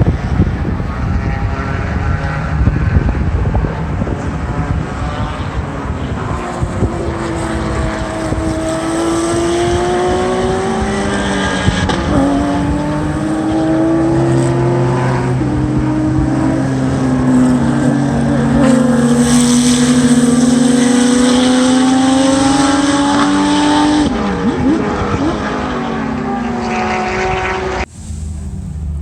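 Race car engines running on the circuit as cars pass, their pitch climbing and dropping back at each gear change. The sound cuts off abruptly near the end.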